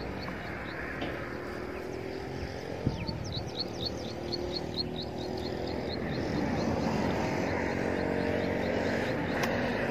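Distant engine drone over wind noise, growing louder from about six seconds in. A rapid run of high chirps, about five a second, repeats through the first half.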